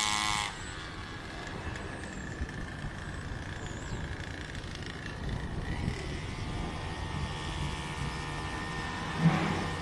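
Small 49cc pocket-bike engine running at high revs, loud at first, then dropping suddenly to a faint steady drone about half a second in. It swells again near the end, with one brief loud spike.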